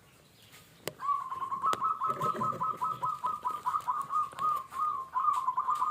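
A dove calling: a long run of rapid, repeated short cooing notes, about four a second, starting about a second in.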